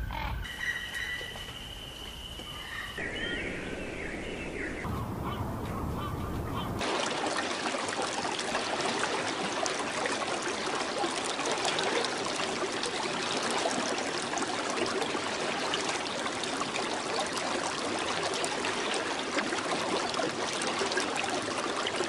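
A few separate whistled bird calls, then from about seven seconds in the dense, continuous din of a large flock of birds calling all at once.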